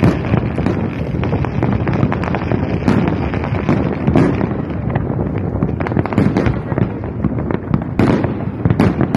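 Aerial fireworks display: a rapid, continuous barrage of shell bursts, many bangs overlapping, with a couple of louder reports near the end.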